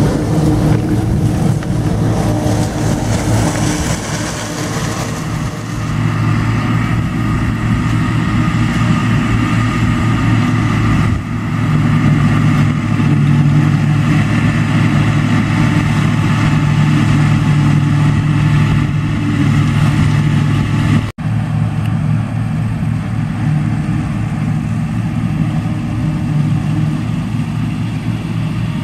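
Ford diesel tractor's engine running steadily under load, driving a pull-type Gehl forage chopper that cuts standing corn and blows the chopped silage into a wagon.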